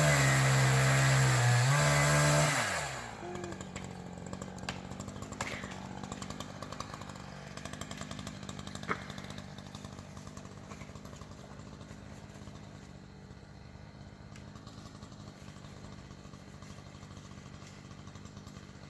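Chainsaw cutting at full throttle, its pitch wavering under load, then let off about three seconds in to a steady, much quieter idle, with a few sharp clicks.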